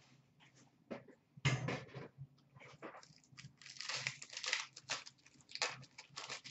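A foil wrapper on a hockey card pack crinkling and crackling as hands tear it open, in irregular bursts, the loudest about a second and a half in.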